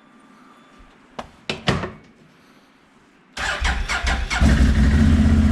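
A few sharp clicks, then about three and a half seconds in a vehicle engine cranks for about a second, catches and settles into a steady idle. The battery was not dead after all; the earlier failure to start was user error.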